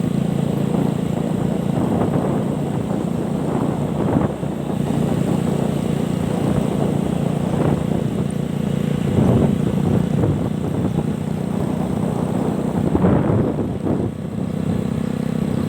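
Motorcycle engine running steadily, with louder noisy stretches now and then.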